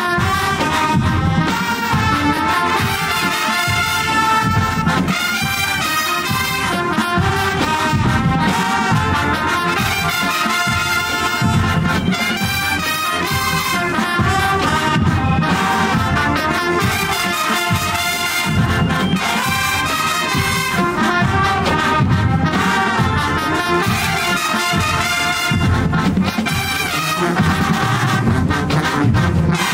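HBCU marching band playing live at full volume: trumpets and other brass carrying the tune over a steady drum beat.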